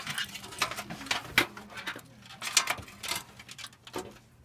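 Irregular clicks, knocks and scraping of a motherboard and its I/O back plate being handled and pushed into a PC case. The loudest knocks come about a second and a half and two and a half seconds in.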